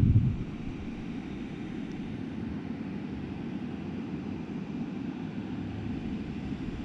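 Wind buffeting the camera's microphone: a steady low rumble, with a louder gust that dies away just after the start.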